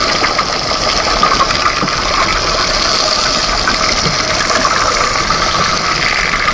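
Soundtrack of underwater footage of lava flowing into the sea: a steady hiss and rumble with fine crackling.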